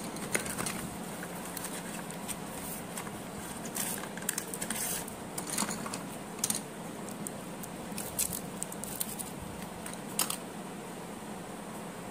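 Pencils and a plastic ruler being handled over a pile of loose pencils: scattered light clicks and rustles as they knock together, over a steady background hiss.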